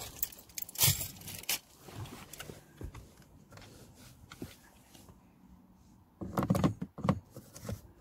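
Plastic lower dashboard trim panel of a Volkswagen Polo being handled and pressed back into place: scattered clicks and knocks, with a cluster of louder knocks near the end.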